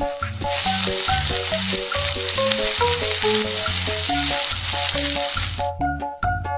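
A steady hiss like a sizzling sound effect plays over a bouncy background tune. The hiss starts about half a second in and cuts off near the end.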